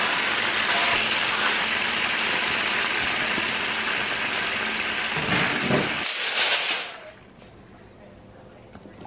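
Hot fat and juices sizzling in a roasting pan under a fresh-roasted whole chicken, a steady loud hiss. It cuts off sharply about seven seconds in, after some handling rumble, leaving a quiet background and a single click near the end.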